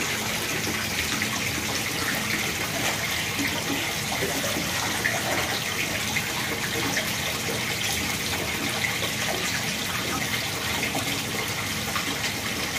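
Steady rush of running water in an indoor fish pond, the pond's filtration system circulating water through its PVC plumbing.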